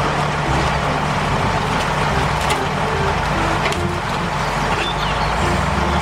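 Heavy diesel engine of a Volvo wheel loader working with a log grapple, running steadily under load as it lifts a bundle of logs.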